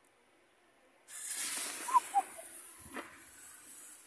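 A lit firework fuse catching about a second in and burning with a loud, sputtering hiss, with a single sharp crack near three seconds.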